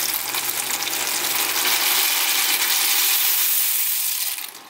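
Dry short pasta poured from a plastic container into a pan of water at a rolling boil: a dense hissing, sizzling rush that grows louder and cuts off suddenly near the end.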